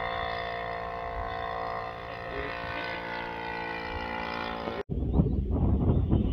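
Engine of a quarter-scale radio-controlled Tiger Moth model biplane running steadily in flight at an even pitch. It cuts off abruptly near the end, replaced by louder, gusty wind rumble on the microphone.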